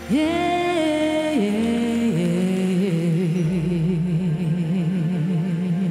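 A woman singing one long held note live into a microphone: her voice swoops up at the start, holds, steps down twice, then sustains a low note with wide, even vibrato to the close of the song.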